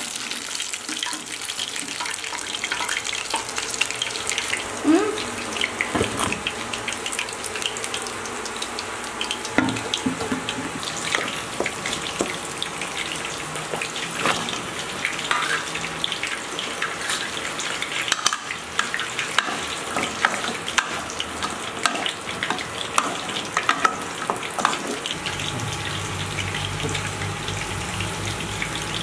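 Hot oil and masala sizzling in a metal pan, with frequent clicks and scrapes of metal utensils against the pan.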